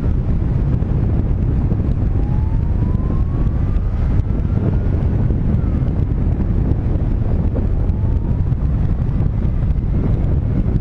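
Wind rushing over the microphone of a paraglider in flight, a steady low buffeting rumble. A faint rising whistle comes twice, about two seconds in and again near eight seconds.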